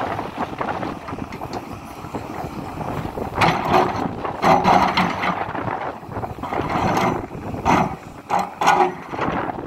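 Hidromek HMK 230LC crawler excavator at work: its engine runs under a continuous noise, with irregular louder surges of scraping and clattering starting about three and a half seconds in.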